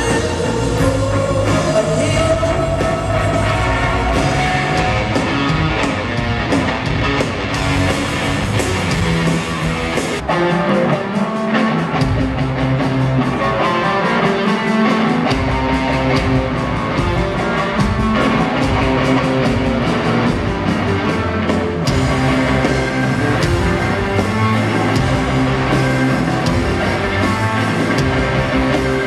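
Rock band playing live in an arena, heard from the audience: electric guitar over bass and drums. The low end thins out for a few seconds about ten seconds in, then comes back.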